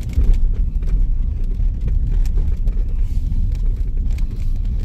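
Vehicle being driven: a steady low engine and road rumble with scattered light rattles and knocks.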